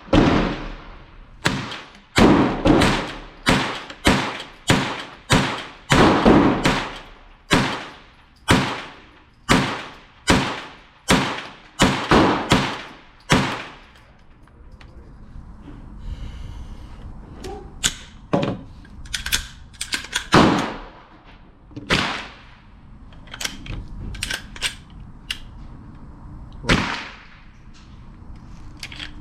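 A .22 LR AR-15 pistol with a CMMG conversion kit and its tungsten buffer weight removed fires a fast string of about twenty shots, roughly two a second. It then goes quieter about halfway through, with faint clicks and three more single shots spaced out.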